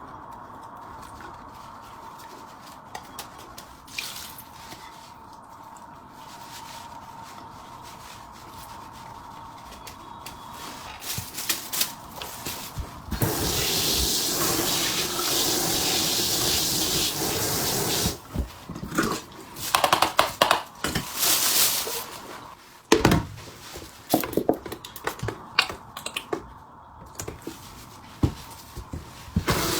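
Kitchen sink: a tap runs water for about five seconds around the middle, amid scattered clinks and knocks of bowls, pots and utensils, which come thick and fast in the second half.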